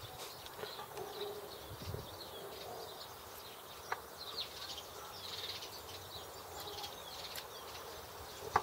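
Faint background birdsong chirping over a steady outdoor hush, with one light click about four seconds in as small metal hub parts are handled.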